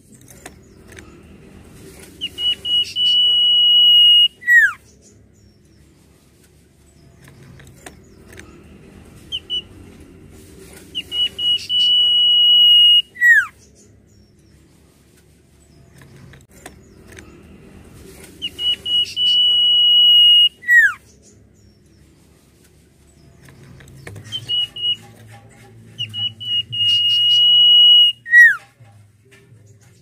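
Common iora (cipoh) singing: four times, a few short notes lead into a long, steady, high whistle, which ends in a quick downward slur. The phrases come about every eight seconds.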